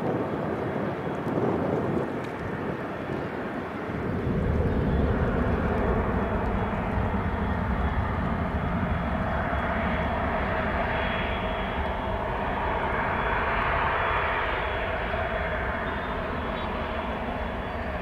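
Boeing 737-800's CFM56-7B turbofan engines running at taxi power as the airliner taxis and turns to line up on the runway: a steady jet rumble and whine with a thin high tone, growing louder about four seconds in.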